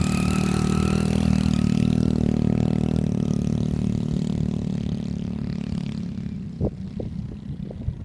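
Tractor engine running with a steady whine above it, fading as the tractor pulls away with its straw baler. Wind buffets the microphone in gusts near the end.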